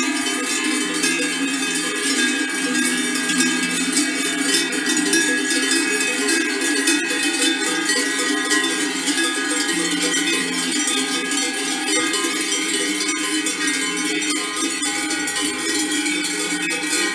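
Many cowbells clanging together continuously and out of step, swinging on the neck collars of a herd of dairy cows walking along a road.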